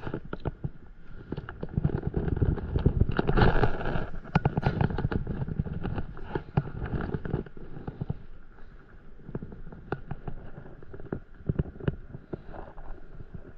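Wind buffeting the action camera's microphone, with small waves slapping against the paddleboard: an irregular crackling and knocking over a low rumble, loudest about three to five seconds in and thinner in the second half.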